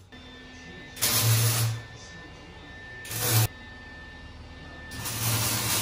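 Three short bursts of hissing noise: the first and last about a second long, the middle one about half a second.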